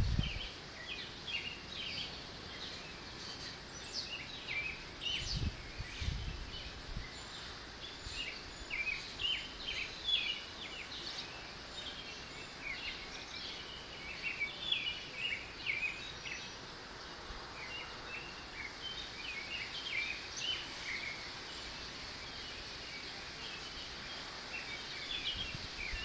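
Wind moving through tree leaves with a steady rustle, under many small birds chirping. A couple of low wind gusts hit the microphone about five to six seconds in.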